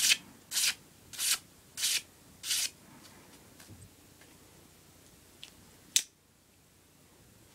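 Cold Steel Voyager folding knife slicing a hand-held sheet of paper: five quick cutting strokes about two-thirds of a second apart. Near the end a single sharp click as the blade is folded shut.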